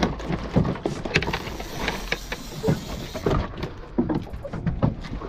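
Scattered knocks, thumps and clatter of a red snapper being loaded into a boat's under-seat fish box, the hinged seat lid lifted and the fish handled with a lip gripper, over a steady low rumble.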